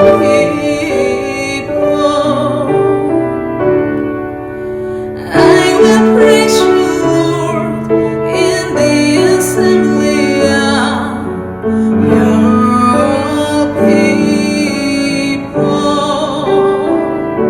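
Music: a woman singing a slow worship song with instrumental accompaniment.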